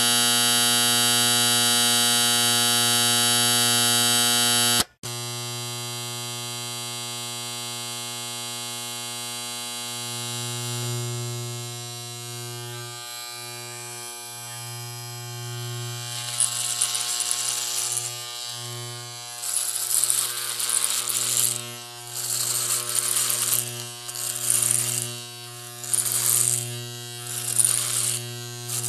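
Electric shaver buzzing steadily; the buzz cuts off abruptly about five seconds in and a quieter shaver hum follows. From about the middle on it is drawn over stubble in repeated strokes, a short hissing cut about once a second.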